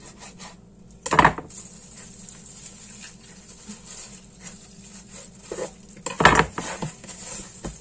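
Knife knocking and clattering on a cutting board as raw rib meat is cut up, with two loud sharp knocks about five seconds apart and lighter clicks between.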